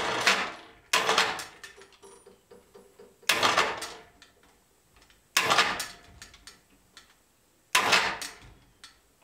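Overhead electric hoist jogged in five short bursts, each starting abruptly and dying away within about a second, as it tilts a drill press column.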